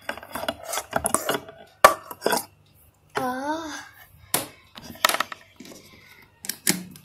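Handling noise as a phone and a gooseneck desk lamp are moved about: a string of separate sharp clicks and knocks, with a short wavering hum of a voice about three seconds in.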